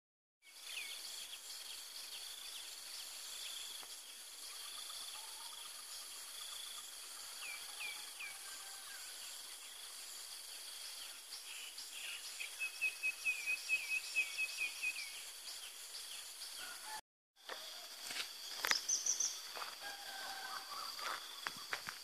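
Outdoor countryside ambience: a steady, high-pitched insect chorus with scattered bird chirps and a rapid bird trill in the middle. After a brief break near the end, irregular footsteps crunch on a dirt path over the insect sound.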